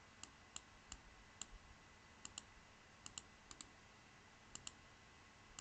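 Computer mouse clicking: about a dozen sharp, faint clicks at uneven intervals, several in quick pairs like press-and-release or double-clicks.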